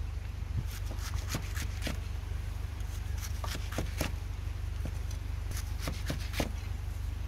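Cleaver slicing through a peeled pineapple and knocking on a wooden chopping block: a string of short, uneven cuts and taps, over a steady low hum.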